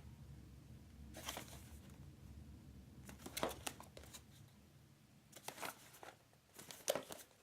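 Hands turning a product box over and around: a few faint rustles and scrapes of fingers and palms sliding on the box, a second or two apart, with quiet gaps between.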